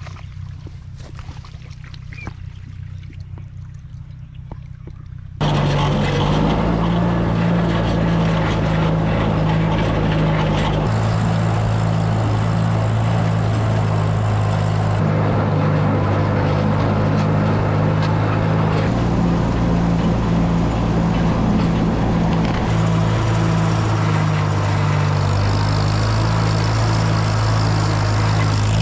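Tractor engine running steadily, with a low even drone. It starts quieter, then about five seconds in it abruptly becomes much louder and stays at that level.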